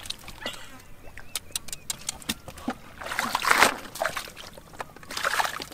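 Shallow muddy water splashing and sloshing as hands and a metal scoop work through it, with scattered small drips and clicks. A louder splash comes about three seconds in, and a shorter one near the end.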